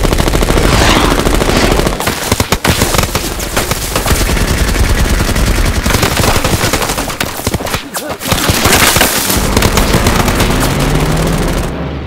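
Film sound of F4U Corsair fighters strafing: loud, continuous rapid machine-gun fire with bullet impacts, briefly thinning about two and a half seconds in and again around eight seconds in.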